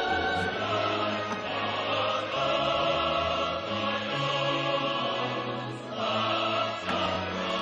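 Background music with choir-like voices singing long held notes.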